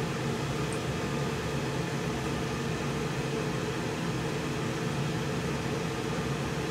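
HVAC equipment running steadily: an even mechanical hum with a low drone and air hiss.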